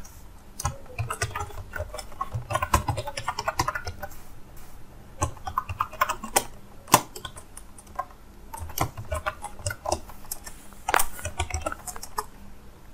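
Typing on a computer keyboard: irregular spurts of key clicks with short pauses between them.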